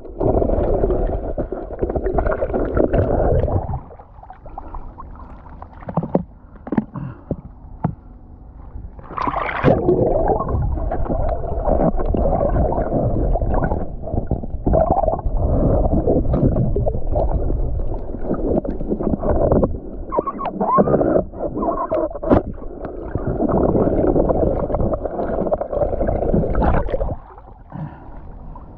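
Sea water sloshing and gurgling around the camera as a spearfisher moves through shallow water, in loud stretches with quieter gaps between them and scattered small knocks.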